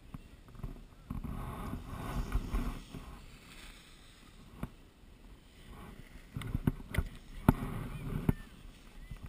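Snowboard scraping over snow in two stretches, with a few sharp knocks near the end as a board slides across a terrain-park box.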